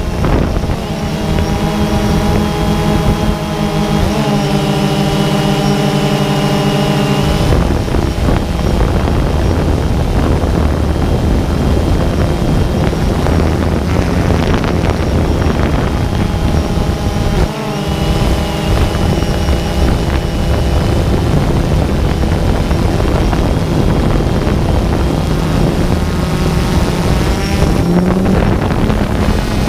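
A motor running steadily throughout, its pitch shifting a few times, briefly dipping about two-thirds of the way through.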